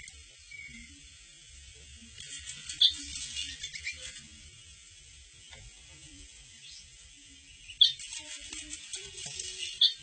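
Two spells of crackling, clicking sound effects from a cat game on a smartphone, with three sharp taps as the cat's paw strikes the phone.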